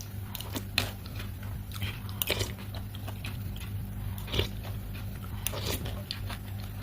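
Crunchy fried chips being bitten and chewed close to the microphone: irregular sharp crunches over a steady low hum.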